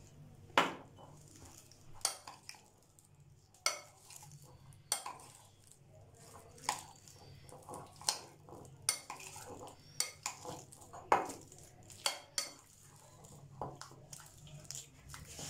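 A metal spoon clinking against a glass bowl while stirring chicken pieces into a thick batter, in irregular clinks about once a second.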